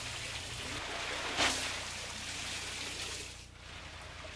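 Water gushing and spraying from a pipe valve into a concrete channel: a steady rush with a brief louder splash about a second and a half in, quieter near the end.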